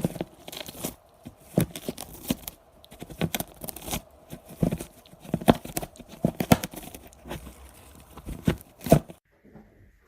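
Irregular crinkling and tearing sounds, many sharp crackles and knocks in quick, uneven succession, stopping about nine seconds in.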